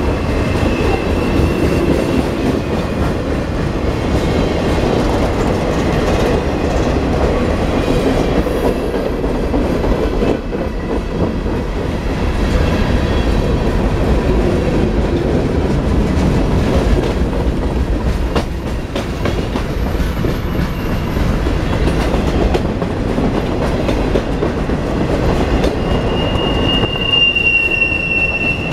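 Freight train of boxcars and covered hoppers rolling past at close range, its steel wheels giving a steady rumble on the rails. A high-pitched wheel squeal is faint about a second in and comes in strongly near the end.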